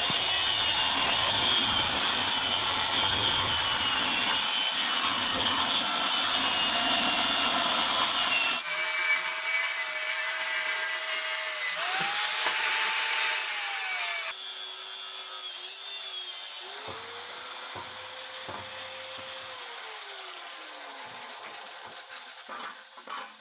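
Angle grinder cutting into the steel shell of a motorcycle silencer to free the loose internal mesh. For about eight seconds it grinds loudly with a wavering whine. Then the motor tone rises and falls as the tool is worked, the sound drops sharply about fourteen seconds in, and the tool winds down near the end.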